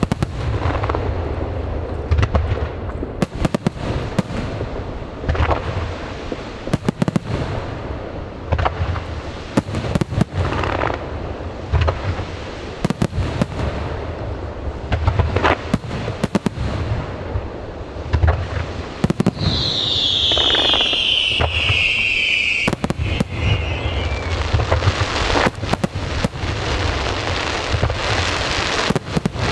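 Aerial fireworks shells bursting one after another in quick, irregular succession with booms and continuous crackling. About two-thirds of the way through, a high whistle slides down in pitch over several seconds.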